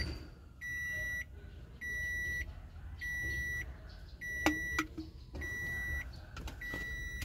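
Van's electronic warning chime beeping steadily, six even single-tone beeps a little over a second apart, with one sharp knock about halfway through.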